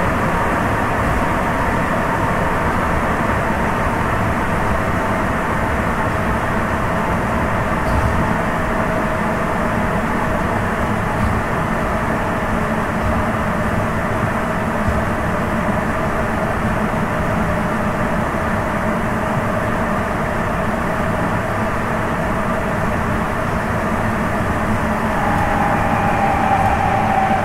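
Sapporo Municipal Subway 9000 series rubber-tyred train running between stations, heard from inside the car: a steady running rumble with faint motor whines. Near the end a higher whine comes in and slowly falls in pitch.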